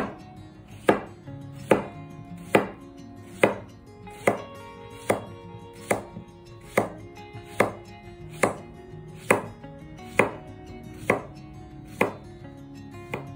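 Kitchen knife slicing a cucumber into thick rounds on a wooden cutting board: a sharp chop of the blade onto the board a little under once a second, about sixteen times at an even pace.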